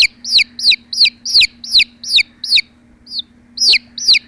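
A bird calling repeatedly: short, high calls that each fall in pitch, about three a second, breaking off for about a second in the middle before starting again.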